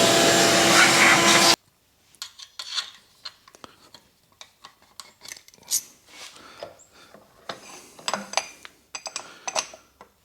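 Milling machine running with a steady whir that cuts off abruptly about a second and a half in, followed by scattered light metal clinks, taps and scraping of parts and tools being handled at the machine.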